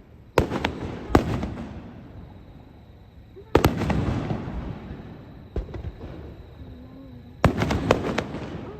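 Aerial fireworks shells bursting overhead: a sharp bang about half a second in, another a second in, a big one near the middle and a cluster of bangs near the end, each trailing off in a long rolling rumble and crackle.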